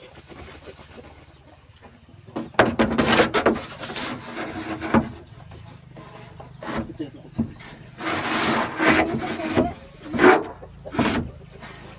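A corrugated roofing sheet scraping and rubbing as it is pushed and slid over wooden purlins. There are two longer scrapes, about two and a half and eight seconds in, and a couple of short ones near the end.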